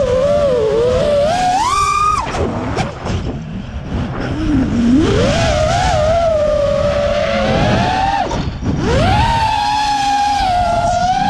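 FPV quadcopter's brushless motors and propellers whining, the pitch rising and falling with the throttle, over rough wind rush on the onboard GoPro microphone. The whine drops away about two seconds in and again past eight seconds as the throttle is cut, then climbs back up.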